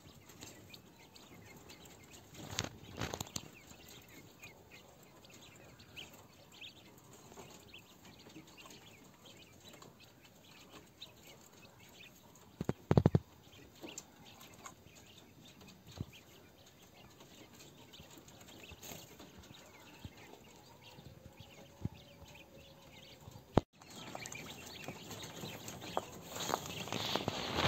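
Chinese painted quail (king quail) moving about a wire cage: faint scattered pecking and scratching ticks, with a short loud clatter of a few knocks about halfway through. Near the end, after a sudden cut, a louder, busier rustling of several quail moving and flapping together.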